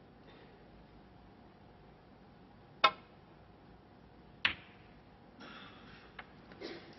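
Snooker cue tip striking the cue ball with a sharp click about three seconds in, then a second, quieter click about a second and a half later as the cue ball hits the green ball. A faint hush of background noise and a light tick follow near the end.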